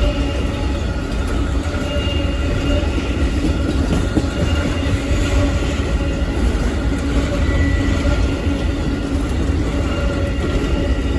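Amtrak Auto Train's passenger and auto-rack cars rolling past, a steady heavy rumble of wheels on rail with a few faint steady squealing tones over it.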